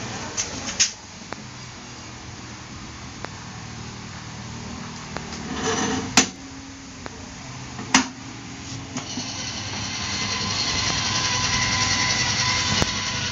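Motor of a digital cervical and lumbar traction machine running as it pulls on its traction cord, with a steady whine that slowly grows louder from about nine seconds in. A few sharp clicks come before it.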